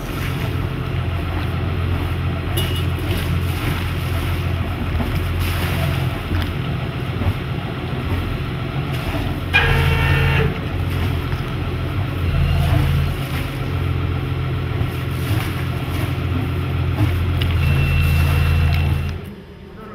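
Motorboat engine running steadily with a deep drone, with a brief high-pitched squeal about halfway through. The drone cuts off shortly before the end.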